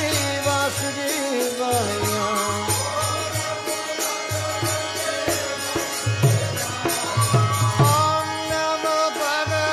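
Background music: a sung, mantra-style chant with a wandering vocal melody over a steady low beat and light percussion.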